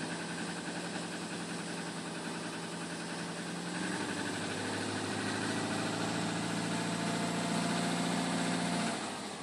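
Subaru Legacy boxer engine idling half warmed up, with a knock, which the owner puts down to a faulty idle air control valve. The idle note changes about four seconds in, and the sound fades near the end.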